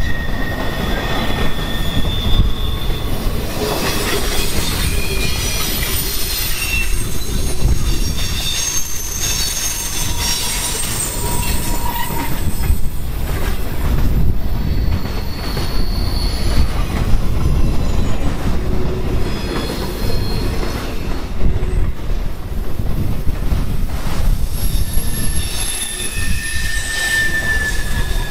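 Freight train boxcars rolling past close by on curved track: a steady low rumble and rattle of steel wheels on rail, with thin high-pitched wheel squeals that come and go, the flanges grinding against the rail on the curve.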